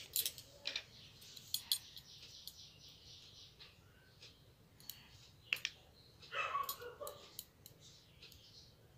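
Scattered light clicks and taps of small plastic paint bottles and craft tools being picked up and handled on a hard floor.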